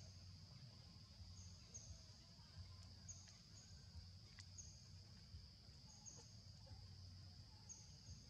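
Faint outdoor ambience: a steady high insect drone, with short high chirps coming in pairs about every second and a half, over a low rumble.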